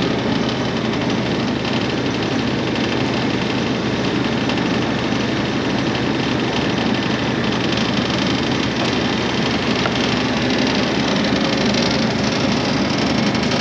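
An engine of a work machine idling steadily, a constant low hum with no change in speed.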